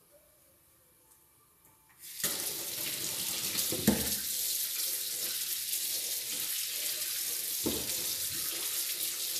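Kitchen tap turned on about two seconds in, then water running steadily into a stainless-steel sink as a peeled chayote is rinsed under the stream. Two brief knocks come about four and eight seconds in, the first the loudest sound.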